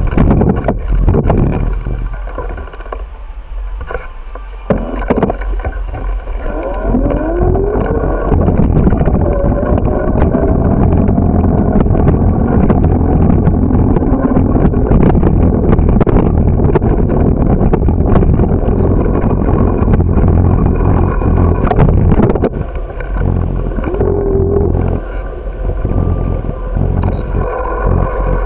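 Wind buffeting the microphone with a steady low rumble, and rattling knocks from a bicycle riding over pavement, denser and louder through the middle. A tone rises in pitch about a quarter of the way in.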